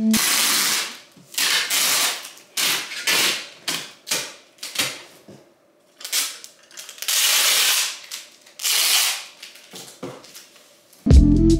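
Packing tape being pulled off a handheld tape dispenser and pressed onto a cardboard box: a series of harsh tearing rips, some short and some over a second long, with a brief pause about halfway through.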